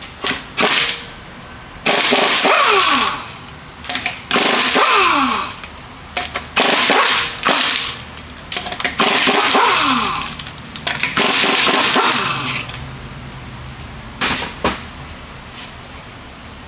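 Impact wrench rattling off a wheel's lug nuts in five bursts of about a second each, each burst with a falling whine, with short blips of the trigger before and after.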